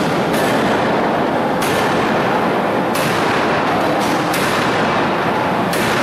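Hydraulic open-die forging hammer striking a red-hot steel billet in a steady rhythm, five sharp blows about a second and a half apart, over a constant loud din of the running machinery.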